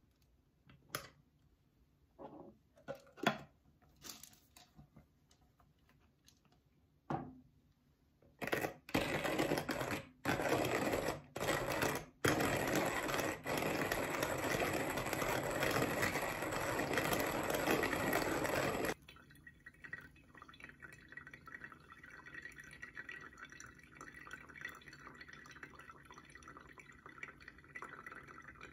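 A few light clicks and knocks, then a hand-cranked wooden-box coffee grinder grinding beans from about 8 seconds in, with a few short pauses before it runs steadily and stops suddenly about 19 seconds in. After that, much quieter, hot water is poured from a gooseneck kettle onto the coffee grounds in a paper pour-over filter.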